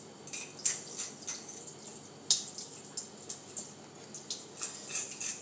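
Water splashing and dripping in a stainless steel kitchen sink as fish are handled and rinsed under the tap. Short irregular splashes come a few times a second, with one sharper knock a little over two seconds in.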